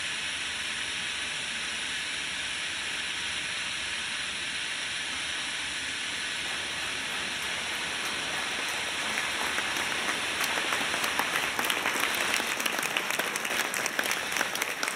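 Audience applauding: a steady wash of clapping, with distinct nearby claps joining in and growing louder from about nine seconds in.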